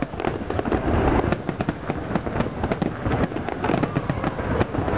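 Aerial fireworks shells bursting in a dense barrage, a fast, unbroken run of bangs with no pause.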